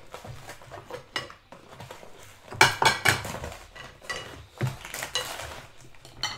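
Metal cutlery clinking and scraping against ceramic bowls and plates, with a cluster of loud clinks about two and a half seconds in and a few single clinks after.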